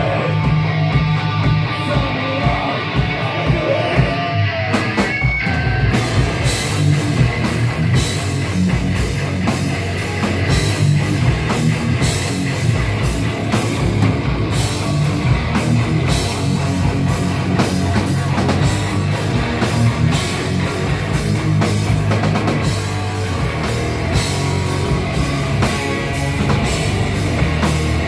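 Live heavy rock band playing loudly: distorted electric guitars over bass and drum kit. The cymbals and full drums come in about five seconds in, after a stretch led by guitar.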